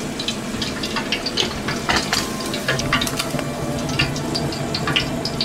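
Starch-dusted conger eel pieces deep-frying in hot oil: a steady sizzle with many small irregular pops and crackles.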